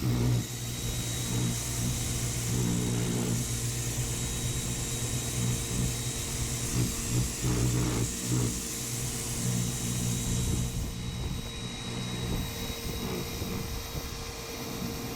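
Pressure washer running with a steady motor hum, its spray hissing until about eleven seconds in.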